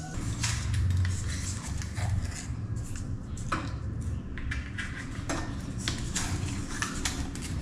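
Brass drain fitting and corrugated copper pipe being handled, with scattered metallic clinks and knocks against the tile floor while Teflon (PTFE) tape is unwound and wrapped onto the fitting's threads, over a low background hum.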